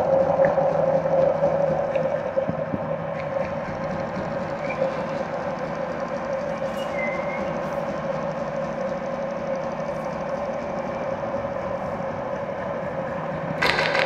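A steady drone holding one tone, with a faint hiss around it. Near the end an electric sewing machine starts stitching at speed, a rapid, even clatter that is suddenly much louder.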